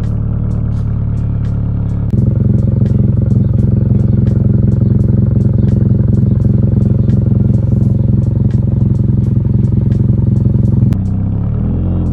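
Toyota GR86 2.4-litre flat-four breathing through a Tomei 60S titanium cat-back exhaust. It idles, then is held at a steady raised rpm and gets louder about two seconds in. Near the end it drops back with a short rise and fall in pitch.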